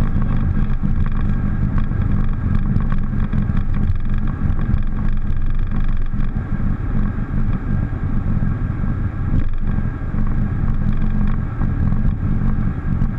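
Steady Boeing 737 cockpit noise: engines and air systems running as a loud, even drone with thin steady whines above it.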